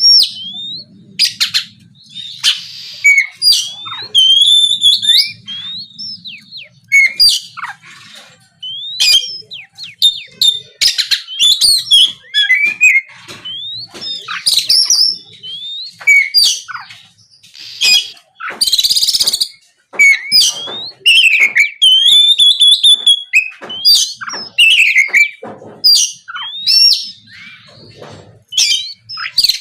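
Oriental magpie-robin (kacer) in full song: a loud, fast run of varied whistled notes and quick pitch glides, broken by a few harsh rasping notes.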